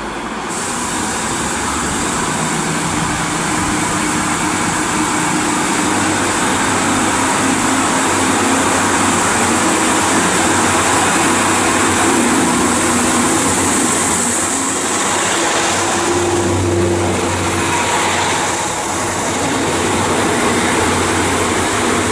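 Class 150 Sprinter diesel multiple unit pulling out and accelerating past under power, its diesel engines running with a continuous hum over wheel and rail noise. The sound eases slightly as it draws away near the end.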